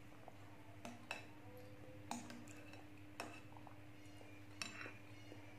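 Metal spoon clinking and scraping against a glass bowl while scooping, a handful of light clinks spaced about a second apart, over a faint steady hum.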